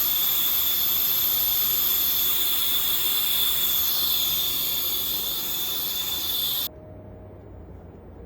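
Loud steady hissing jet with a high whistling tone in it, which cuts off abruptly near the end, leaving a quiet low hum.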